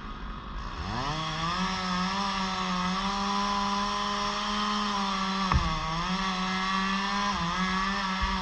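Two-stroke chainsaw dropping toward idle at the start, then throttled back up about a second in and held at high, steady revs, with a brief dip and knock about five and a half seconds in.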